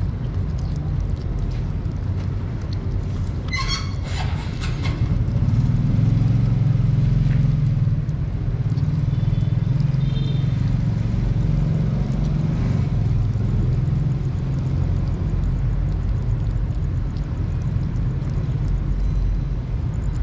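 Kittens eating wet food from a plastic tub close by, with faint chewing clicks over a steady low rumble that swells for a couple of seconds mid-way. A brief high call about four seconds in.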